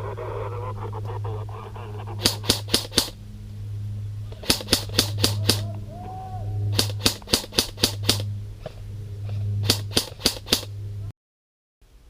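Airsoft gun firing in four quick bursts of four to seven shots, about five shots a second, over a steady low hum. The sound cuts off suddenly near the end.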